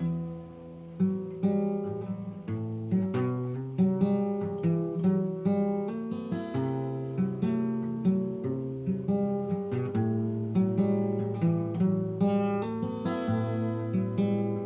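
Acoustic guitar playing a slow melody of plucked notes and chords, each note ringing and dying away.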